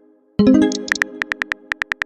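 A synthesized chord strikes and fades. Then, from about halfway, comes a fast, even run of light keyboard-typing clicks, about seven a second, the typing sound effect of a texting-story animation.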